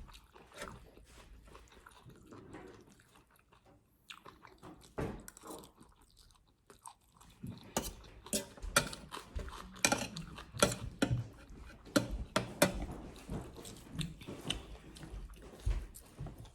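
A person chewing and biting into food close to the microphone, likely a spicy chicken-feet salad, with crunchy clicks. The clicks are sparse and faint at first, then come thick and loud from about halfway through.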